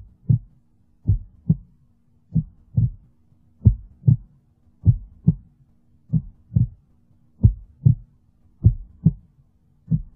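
Heartbeat sound effect: pairs of short low thumps (lub-dub) repeating evenly about every 1.3 seconds, over a faint steady low drone.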